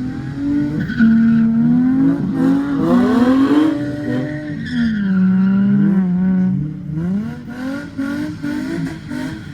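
Drift cars' engines revving hard, the pitch climbing and dropping again and again as the cars slide through a curve on a wet track.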